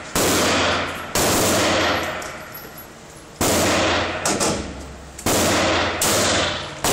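Gunshots at an indoor shooting range, about six at uneven intervals, each very loud with a long echoing tail from the range walls.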